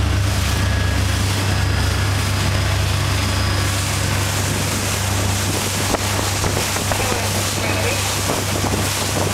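Albin 27 trawler's inboard diesel engine running at full throttle, a steady low drone heard from inside the cabin. About four seconds in, the rush of wind and water grows louder over it.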